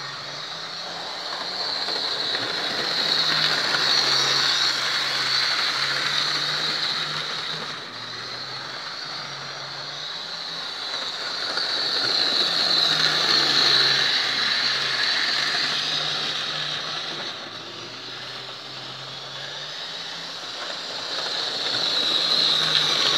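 Lima OO-gauge Deltic model locomotive running laps on a model railway: a low electric-motor hum with the rattle of wheels on the track. It grows louder and fades three times as the train passes close and goes round again.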